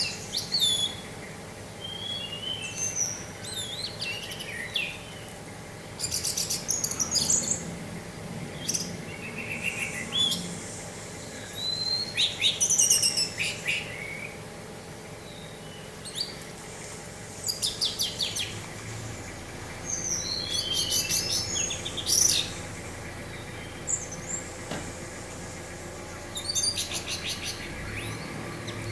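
Orange-headed thrush singing: a string of varied phrases of clear whistles, rapid trills and chirps, broken by short pauses.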